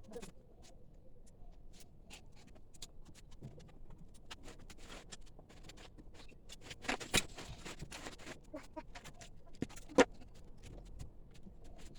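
Scattered light clicks and taps, with a louder cluster about seven seconds in and one sharp click about ten seconds in.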